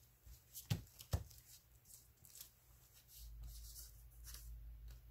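Hands pressing and smoothing paper collage pieces onto an envelope: soft paper rustling, with two sharp taps about a second in.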